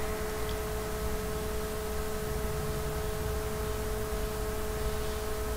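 Steady background hum: a few constant tones over a low hiss and rumble, unchanging throughout.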